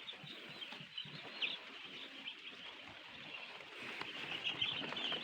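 A flock of day-old broiler chicks peeping: a dense chorus of short, high cheeps that grows louder and busier over the last second or so.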